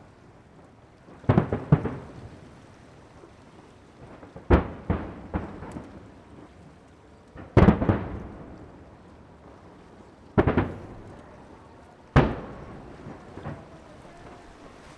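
Fireworks shells bursting overhead, a heavy boom every two to three seconds, five in all. Some are followed by a few quick extra bangs, and each rumbles away in a long echoing tail.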